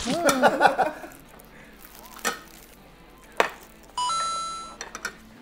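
A short vocal sound at the start, then two light clicks like plates being set down. About four seconds in comes a sudden bright chime sound effect that fades out within a second.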